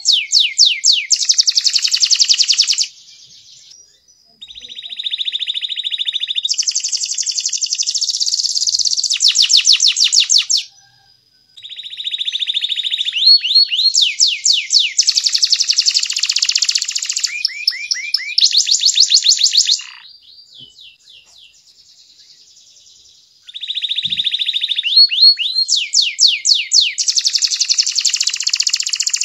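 Domestic canary singing: long, high-pitched song phrases of fast repeated chirps and rolling trills, four bouts broken by short pauses.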